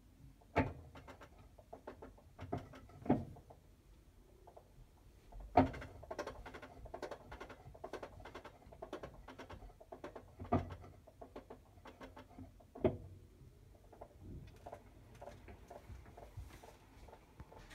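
Hitachi BeatWash BW-8HV washing machine spinning with an abnormal noise: irregular clicking and rattling, with about half a dozen louder knocks at uneven intervals. The noise comes at medium spin speed in a ten-year-old machine.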